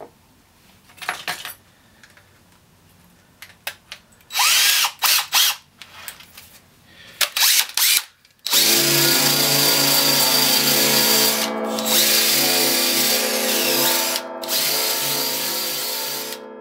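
Scattered handling knocks and scraping, then a handheld power tool's motor starts about halfway through and runs steadily at speed, dipping briefly twice before it stops near the end.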